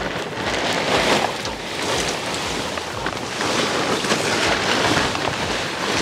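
A plastic tarp rustling and crinkling as it is pulled and dragged off a machine, a loud rushing noise that swells and eases several times.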